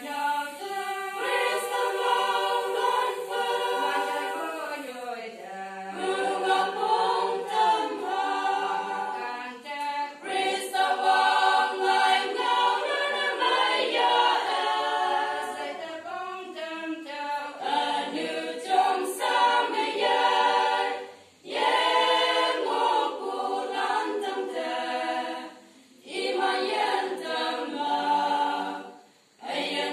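Women's choir singing a cappella, voices sustained through the phrases, with three brief breaks between phrases in the second half.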